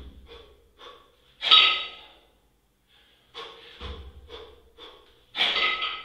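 Heavy rhythmic breathing of a man doing double kettlebell jerks: two loud, sharp exhales about four seconds apart, with quicker short breaths between them. A dull low thud comes once, a little before the second loud exhale.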